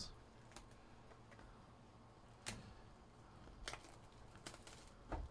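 Faint crinkles and clicks of clear plastic shrink wrap being peeled and torn off a sealed trading-card box, a handful of short sounds spread out over near silence.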